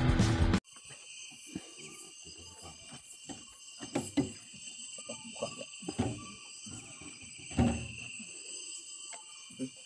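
Intro music cuts off abruptly under a second in. Then comes a steady high-pitched chorus of night insects, with a few dull knocks and bumps from the boat and gear, the loudest a little past halfway.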